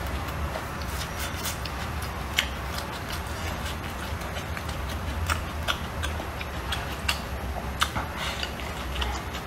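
Close-up eating sounds: chewing on a mouthful of rice and stir-fry, with irregular sharp clicks of chopsticks against a ceramic bowl.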